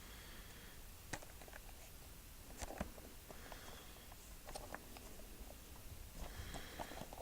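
Faint handling sounds: scattered sharp clicks about a second apart and short bursts of soft rustling, like a small plastic item being handled.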